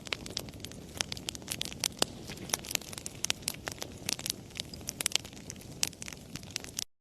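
Wood fire crackling in a fireplace: frequent, irregular sharp pops and snaps over a low, steady noise of the flames. The sound drops out to silence for an instant just before the end.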